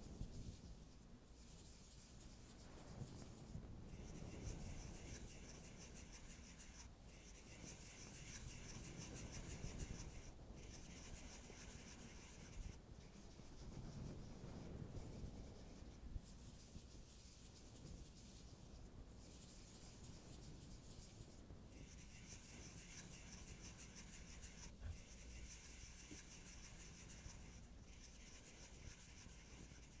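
Faint, close-miked fingertip rubbing and brushing over powder eyeshadow swatches on bare skin, a soft scratchy friction sound. Over it, a soft high hiss comes and goes in stretches of a few seconds, cutting off abruptly.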